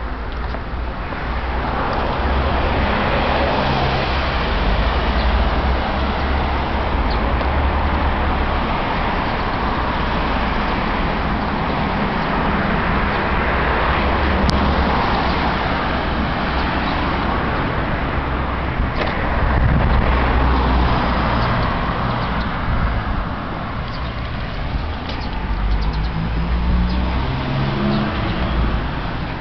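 Road traffic: cars passing on the street alongside, swelling and fading as each goes by, over a steady low rumble.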